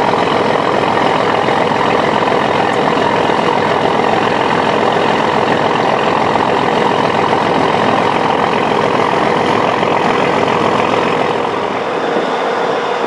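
Boat engine running steadily while the boat is underway, with a dense rushing noise over it and a slight dip near the end.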